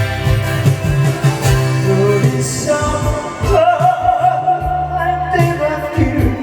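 Song music with a steady drum beat and bass line, and one long held melody note in the middle.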